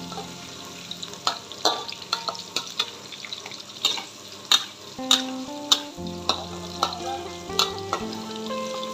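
Metal spatula scraping and tapping against a metal wok as sliced pineapple is stir-fried in hot oil, with a frying sizzle underneath. The sharp scrapes come about one or two a second.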